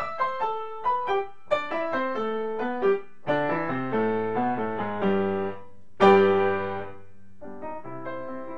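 Piano music: a tune of single struck notes, then fuller chords, with a loud chord struck about six seconds in.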